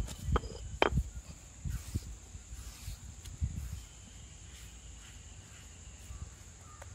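Stone roller pressed and rolled over a flat stone grinding slab, grinding a paste: irregular dull knocks and scrapes of stone on stone with a few sharp clicks, dying away after about four seconds as the roller is set aside and the paste is gathered by hand.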